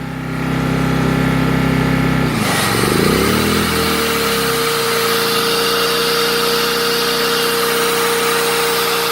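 Four-stroke petrol inverter generator running steadily; about two seconds in, an electric router of about 1200 W is switched on as a load, and the generator's engine picks up speed to carry it. The router then runs with a steady whine over the generator's engine.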